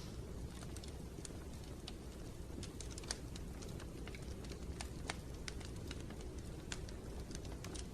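Wood fire in a fireplace crackling: irregular sharp snaps and pops, one louder snap about three seconds in, over a steady low rumble of the flames.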